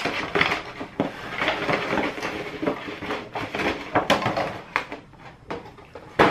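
Shiny holographic foil gift wrap crinkling and crackling as it is handled, with many sharp crackles. It dies down about five seconds in, and a single sharp click comes at the very end.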